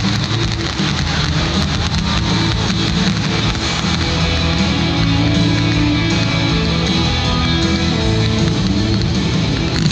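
Rock music with strummed electric guitar.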